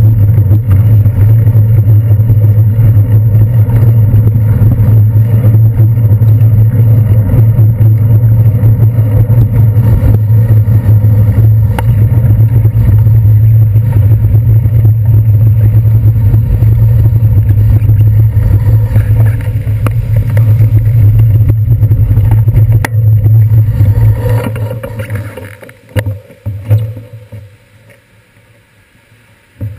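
A loud, steady low rumble of wind and road vibration on a handlebar-mounted GoPro Hero 2 while cycling on wet streets. It dies away about 25 seconds in as the bike slows, leaving a few short bumps.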